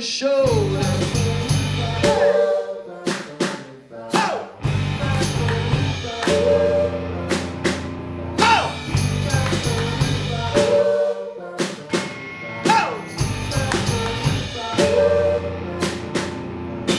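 Live rock band playing: drum kit, electric bass and electric guitars. The bass and drums drop out briefly a few times and come back in.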